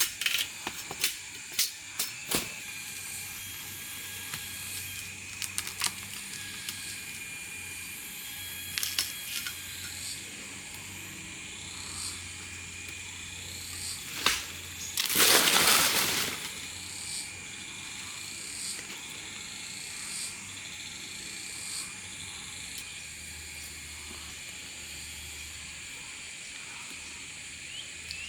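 Outdoor ambience with a steady high-pitched drone, a scatter of sharp knocks in the first few seconds, and one loud rustling rush lasting about a second and a half around the middle.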